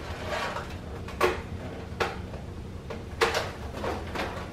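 A cornbread packaging container being pried at by hand, giving a few sharp clicks and cracks about a second apart as its lid resists opening.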